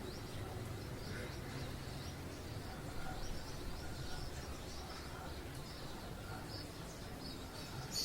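Morning residential-neighbourhood ambience: small birds chirping in quick, repeated high chirps over a steady low background rumble, with one short sharp click near the end.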